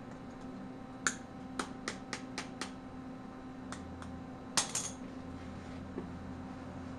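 A steady electrical hum with a string of about ten sharp, light clicks in the first five seconds; the loudest is a short cluster a little past the middle.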